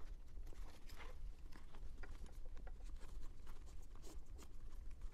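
Leather tool roll handled by hand, its straps and metal buckles being worked: soft leather rustling with scattered small clicks.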